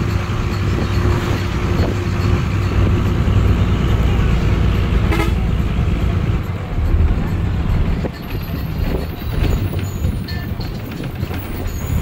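Engine and road noise of a moving bus heard from inside the cabin, a steady low rumble, with a brief horn toot about five seconds in.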